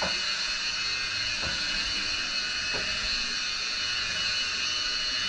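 Handheld electric rotary polisher running steadily with a high whine and hiss as its pad buffs the fiberglass of a surfboard, with a few faint knocks about every second and a half.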